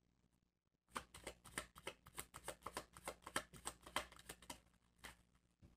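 Tarot cards being shuffled by hand: a quick run of short card clicks and riffles, several a second, starting about a second in and stopping briefly just before the end.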